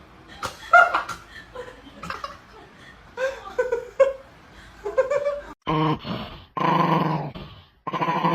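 A dog vocalizing: a few short, higher whines and yelps, then, after a brief break, three long, low, drawn-out calls of about a second each.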